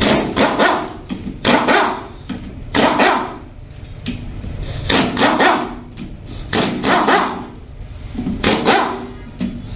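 A dog barking repeatedly, in short runs of a few barks every second or two.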